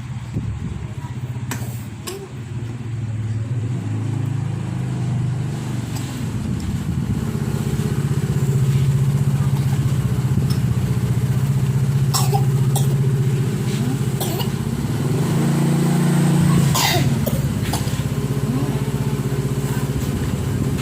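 A motor running steadily and loudly close by, its pitch stepping up and down a few times, with a few sharp clicks over it in the second half.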